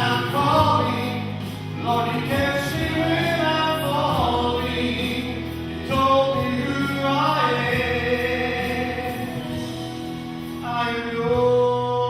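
A choir singing a gospel song with instrumental accompaniment, in sung phrases over sustained low notes.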